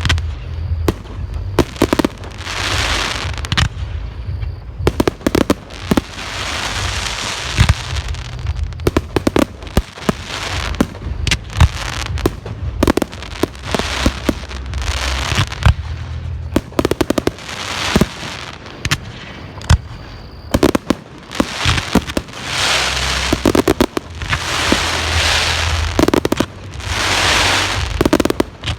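Fireworks display: many sharp bangs of shells bursting in quick, irregular succession, with repeated second-long swells of hiss between them.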